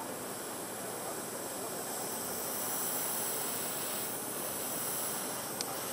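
Airbrush spraying a thin coat of paint onto a soft plastic lure, a steady hiss.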